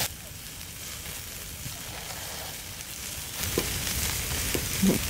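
Food sizzling on a charcoal grill, a steady hiss that grows louder about three and a half seconds in, with a few crackling pops.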